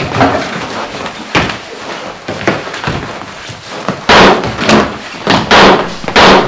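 A run of loud, sharp bangs, about five in quick succession in the last two seconds, after a couple of fainter knocks.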